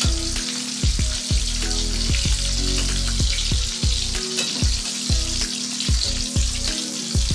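Bilong-bilong fish frying in hot oil in a wok, with a steady sizzle. Over it runs background music with a regular deep bass beat about twice a second.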